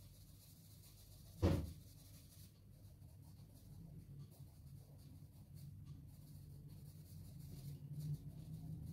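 A single sharp knock about a second and a half in, over a faint low hum that grows slightly louder toward the end.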